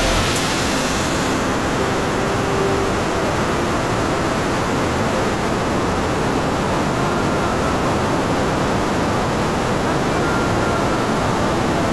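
Steady, fairly loud rushing noise like static, even across the pitch range, with only a faint short tone here and there and no clear beat or voice.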